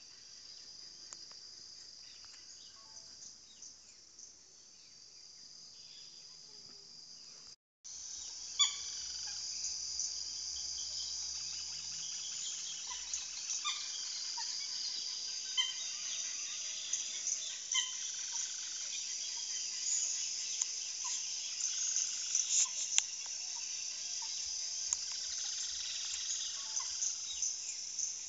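Steady high-pitched insect chorus with scattered short bird calls. The sound cuts out for a moment about eight seconds in and comes back louder, with the bird calls more frequent.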